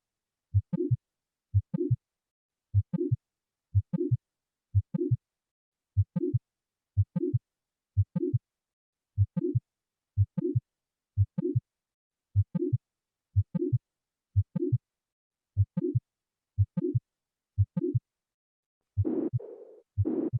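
Recorded heart sounds for auscultation practice: a steady beat a little under once a second, each beat a couple of short low thuds followed by a brief, slightly higher sound. About a second before the end a different, noisier repeating sound with more treble begins.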